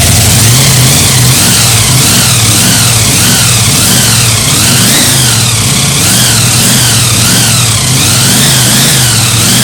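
Supercharged Chevy V8 with an 8-71 Roots blower running and being revved up and down over and over, the blower's whine rising and falling with each rev.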